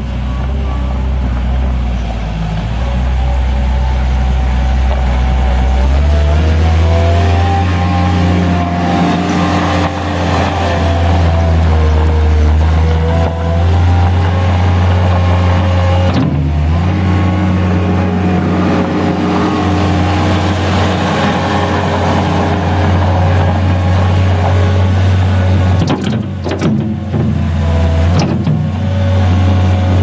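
Mustang 2054 skid steer's engine running, slow at first and then throttled up about six seconds in as the machine drives and works its loader, with brief drops in engine speed around the middle and near the end.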